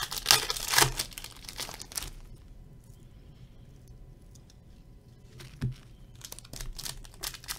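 Foil wrapper of a 2017 Topps Stadium Club baseball card pack crinkling and tearing as it is opened, densest in the first two seconds. After a quieter stretch there is a single sharp knock, then more crinkling near the end.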